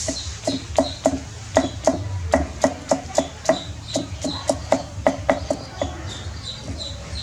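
Knife chopping on a wooden cutting board in a steady rhythm, about three sharp strokes a second, each with a short ring.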